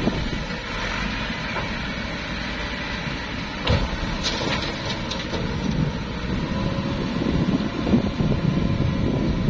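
Massey Ferguson tractor's diesel engine running steadily while its raised tipping trolley empties a load of soil, with one sharp knock about three and a half seconds in.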